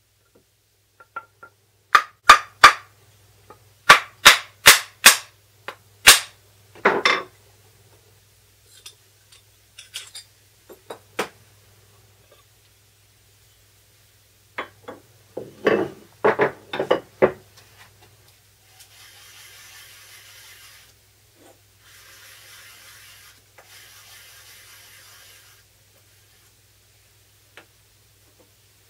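A small hammer striking the wooden body of a Japanese kanna hand plane to loosen and remove its blade: a quick run of sharp taps in small groups, then a cluster of duller knocks. Later comes a steady gritty rubbing, twice for a few seconds each, as a nagura dressing stone is worked over a wet waterstone.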